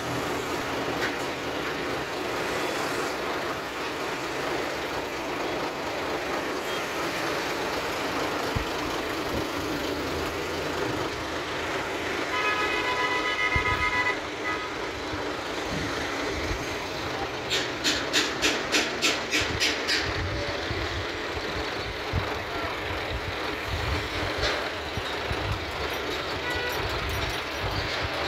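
Steady outdoor traffic and street noise. Around the middle a vehicle horn toots once, held for under two seconds. A few seconds later comes a quick run of about ten sharp clicks or knocks.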